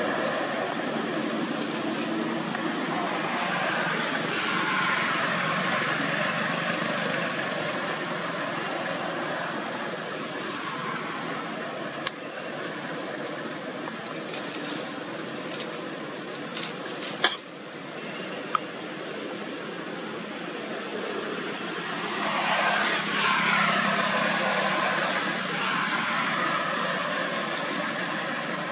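Road traffic passing by: a steady hum that swells as a vehicle goes past about twenty-three seconds in, with a few sharp clicks near the middle.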